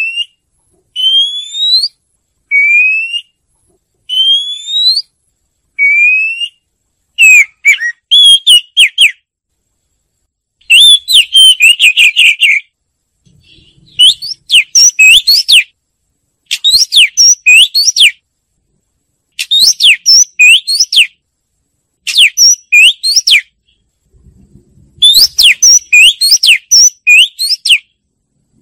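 Oriental magpie-robin singing. First comes a run of single rising whistles about every second and a half, then repeated quick phrases of varied whistled notes and trills, each a second or two long with short pauses between.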